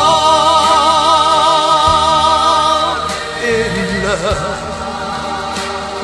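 Song with accompaniment: a voice holds one long note with vibrato for about three seconds, then shorter melodic phrases follow over the backing music.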